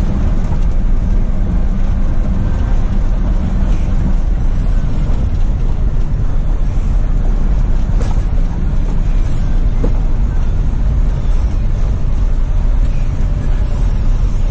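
Inside a truck cab: the diesel engine running with road noise while the truck drives slowly on a dirt road, a steady low rumble.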